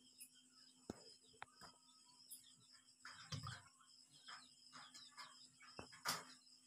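Near silence: a faint, steady, high chirring of night insects, with a few soft clicks and rustles of handling.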